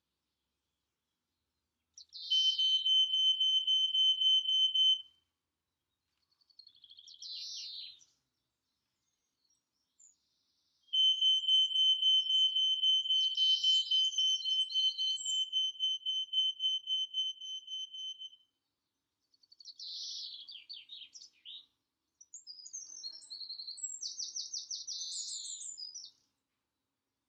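Garden birds singing in short, varied high phrases. Twice there is a long, high, pulsed trill held on one note: the first lasts about three seconds, the second about seven seconds and slowly fades.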